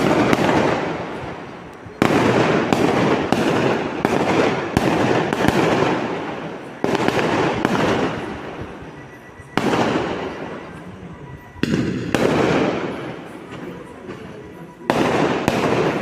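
A run of sudden loud bursts, one every two to three seconds, each trailing off in crackling noise before the next one starts.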